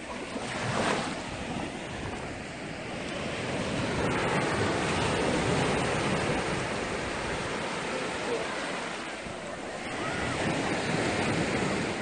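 Small sea waves breaking and washing up a sandy beach, the surf rising and falling in several rushes a few seconds apart.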